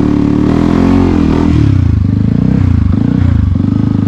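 Dirt bike engine running under load on a hilly trail, its pitch falling and rising as the throttle is worked. Near the end it settles into a steadier, even beat.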